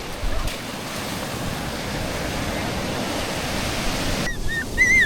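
Sea surf washing in a steady rush, with some wind on the microphone. It cuts off suddenly about four seconds in, and a few short high-pitched cries follow near the end.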